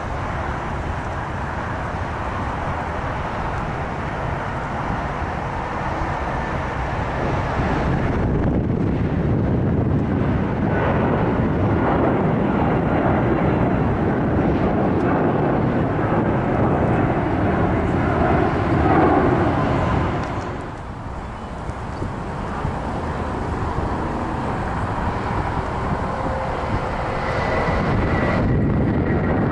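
Jet airliner engines passing overhead, a steady rushing roar that swells, dips briefly about two-thirds of the way through, and swells again near the end with a faint whine.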